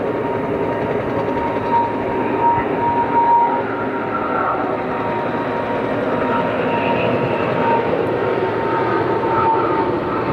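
Boeing 777 airliner's twin jet engines at takeoff power, heard from afar as a steady rumble with a faint high whine.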